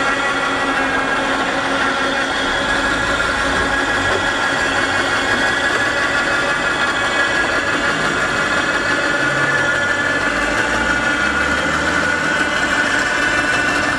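Small 12-volt electric motor whining steadily as it drives the levers and pulleys of a motorised flood-barrier sign, its pitch creeping slightly higher toward the end.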